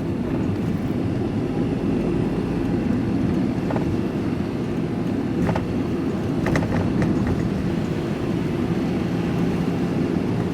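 Van driving along a road, its engine and tyre noise heard from inside the cab as a steady low rumble, with a few faint ticks midway.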